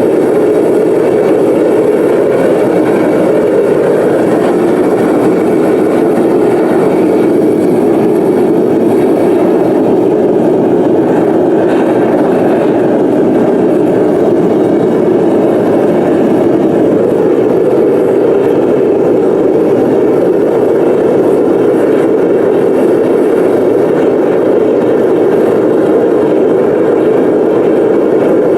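Gas-fired melting furnace burner running steadily at full heat, a loud, even rushing noise with no change in level.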